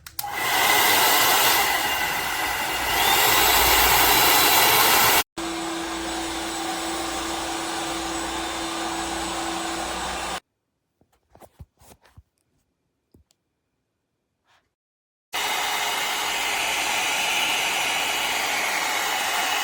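LANDOT Plus 2.0 hot air brush running with a steady rush of air and motor whine; it gets louder about three seconds in and stops abruptly, then runs again with a steady low hum. About halfway through it stops, leaving a few seconds of near silence with faint clicks before it starts running again near the end.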